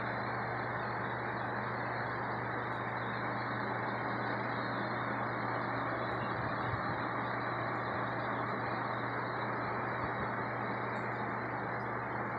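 Aquarium pump running: a steady low hum under a continuous rushing hiss, unchanging throughout.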